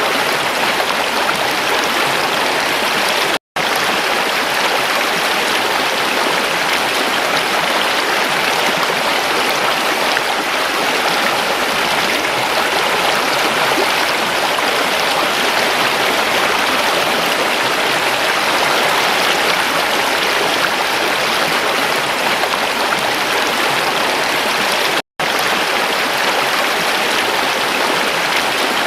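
Water of a stream flowing steadily in an even rush, which cuts out to silence for an instant twice, once a few seconds in and again near the end.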